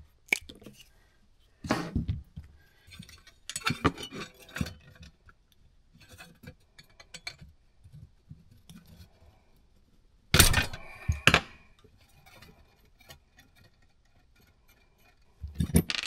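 Tools, wire and small parts being handled on a workbench: scattered clicks, clinks and rustles, with a snip of cutters on heat-shrink tubing near the start and two louder knocks about ten and eleven seconds in.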